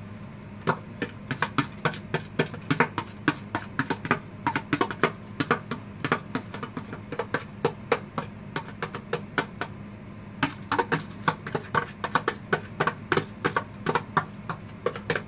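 Hard, days-old cooked rice being worked loose from a plastic food container into a bowl: quick, irregular plastic clicks and knocks, several a second, with short pauses.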